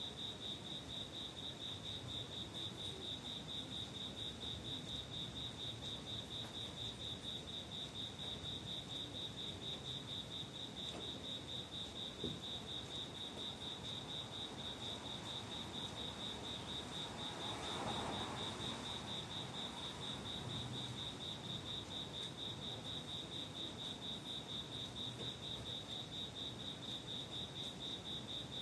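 Insect, most likely a cricket, chirping steadily: a fast, even trill of pulses at one high pitch. About eighteen seconds in, a brief swell of distant noise rises and fades.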